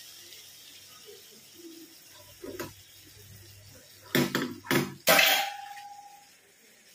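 Metal cookware clattering. There is a light click, then a few sharp knocks, then a louder clank about five seconds in that leaves a brief ringing tone.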